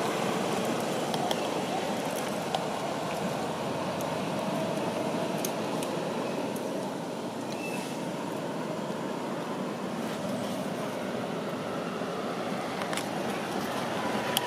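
Steady outdoor background noise, an even hiss and rumble like distant traffic, with a few faint sharp clicks.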